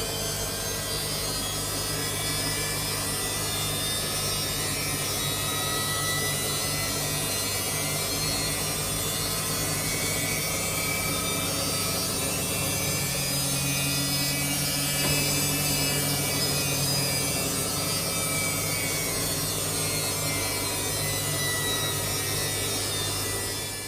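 Samsung washing machine running a quick 30° cycle: a steady mechanical hum with a rushing noise over it, which dies away near the end.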